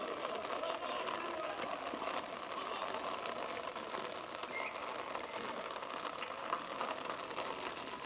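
Indistinct distant voices, players calling on a rugby pitch, over a steady background hiss.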